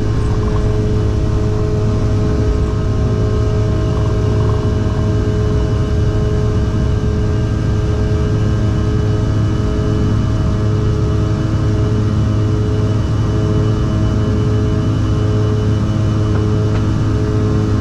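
Cabin sound of a CRJ-700's rear-mounted GE CF34 turbofans running at takeoff thrust through liftoff and initial climb: a loud, steady deep rumble under a buzzsaw of many steady fan tones.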